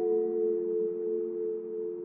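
Church bell tolled for a funeral, its hum dying away after a strike: the low tones hang on steadily while the higher ones fade out about half a second in.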